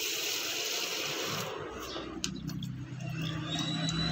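Fertilizer solution poured from a plastic scoop onto the soil, a steady splashing hiss that stops about a second and a half in. After it a low steady hum and a single click.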